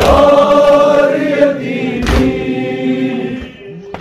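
A crowd of male mourners chanting a Muharram lament together in unison, with a loud collective chest-beating (matam) thump about two seconds in. The chanting fades somewhat near the end.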